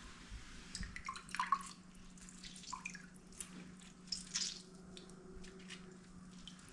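Fresh lemon half squeezed by hand, its juice dripping and spattering in small irregular drips, a few louder about a second in and about four seconds in.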